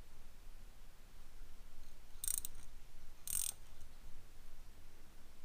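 Craftsman ratcheting combination wrench being worked, its ratchet clicking in two short, quick bursts, about two and three seconds in.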